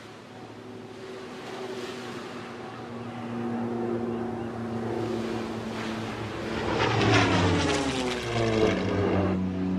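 Single-engine propeller plane approaching and flying low past, its engine growing steadily louder and then dropping in pitch as it goes by about seven to nine seconds in.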